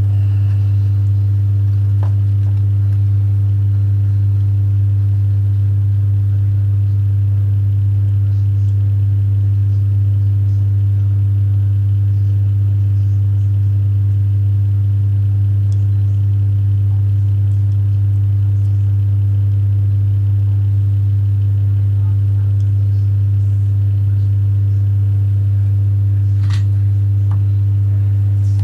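Loud, steady electrical hum: one deep tone with fainter overtones that never changes, with a couple of faint clicks, one near the start and one near the end.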